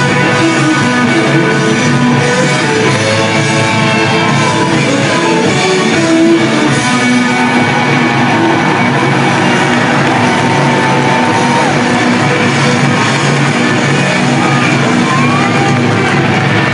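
Rock band playing live through a loud hall PA: electric guitars and drums with singing, recorded from within the crowd, with the audience shouting along.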